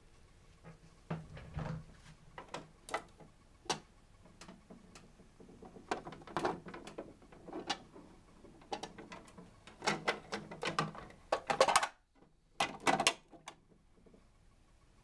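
Plastic clicking and rattling from a Dickie Toys garbage truck's rear bin lifter, turned by hand with its side knob as it raises and tips a toy wheelie bin. The clicks come irregularly, thickening into a busier clatter about ten seconds in and a short one near the end.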